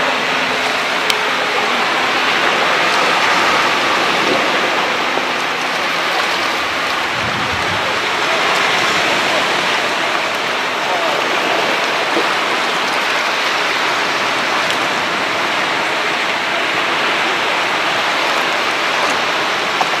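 Heavy rain in a storm by the sea: a steady, even hiss with a few faint sharp ticks.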